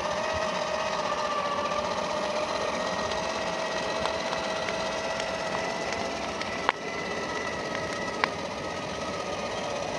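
Traxxas TRX-4 RC crawler's 550 21T electric motor and geared drivetrain whining steadily as it drives, the pitch creeping slowly upward. Two sharp knocks come about two-thirds through and again a second and a half later.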